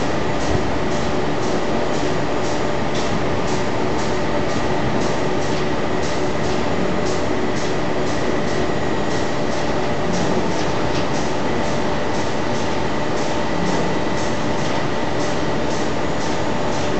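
Steady mechanical drone of chemical plant machinery, such as fans and pumps, with several steady hum tones and a light, rapid ticking over it, about three or four ticks a second.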